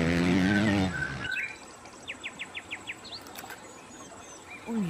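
Dirt-bike engine revving, its pitch wavering, then cutting off about a second in. Small birds then chirp quietly: a quick run of five short chirps and a few scattered calls.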